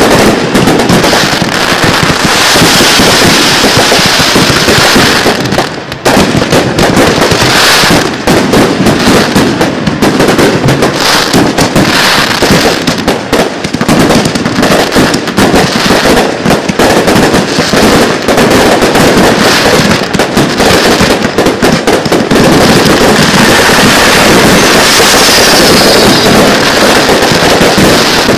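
Display fireworks finale barrage: a continuous, very loud string of overlapping aerial shell bursts, bangs and crackle with hardly a gap, easing only briefly about six seconds in.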